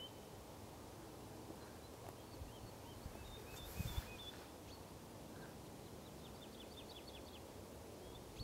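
Woodlark singing softly: a few scattered whistled notes, then from about two-thirds of the way in a quickening series of short descending whistles. A steady low background rumble runs underneath, with a short burst of hiss about four seconds in.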